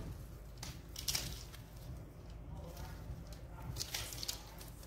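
Mesh bug-screen fabric being handled, a few faint brief rustles.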